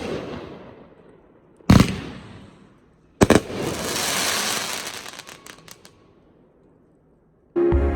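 500-gram fireworks cake (Pyro Demon Fireworks' Pyro Appetite) firing its last shots: two loud bangs about a second and a half apart, the second followed by a couple of seconds of crackling that fades away. Music starts near the end.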